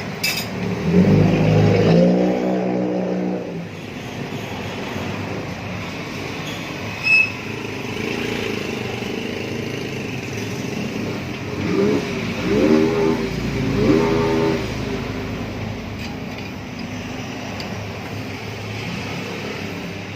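Motor vehicle engines revving over steady traffic rumble: one rise and fall about a second in, and three short revs around twelve to fourteen seconds in.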